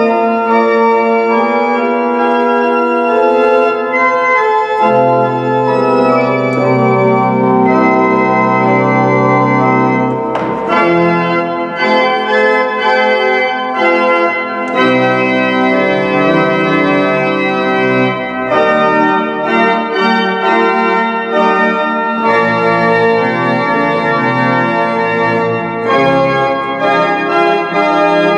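Pipe organ playing a fughetta, several lines of sustained notes moving against each other, with deeper bass notes coming in about five seconds in.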